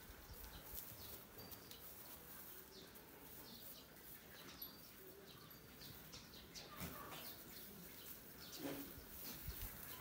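Quiet goat-shed ambience: faint, scattered bird chirps over the soft rustling of goats feeding at a hay feeder in straw bedding.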